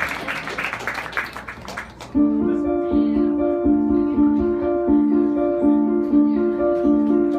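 Audience clapping and cheering dies away, then about two seconds in a keyboard starts a repeating riff of short held notes alternating in pairs, about two notes a second, the opening of a live song.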